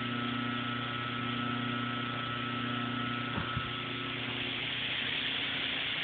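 Old General Electric electric motors with wheels on their shafts running with a steady hum, smooth and quiet on their first run in about 25 years. A thin high tone drops out about four seconds in, and there are two brief knocks a little after three seconds.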